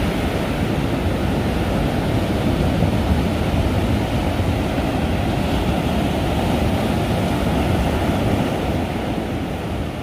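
Ocean surf breaking and washing over the shallows of a beach, a steady rushing noise.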